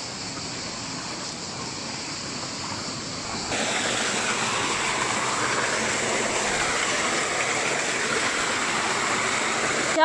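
Mountain stream rushing and splashing over boulders, a steady wash of water. About three and a half seconds in it suddenly grows louder and brighter, then holds steady.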